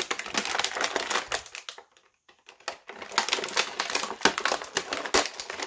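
Plastic toy packaging being torn and crinkled open by hand to free an action figure: dense crackling and clicking, pausing for about a second partway through and then going on.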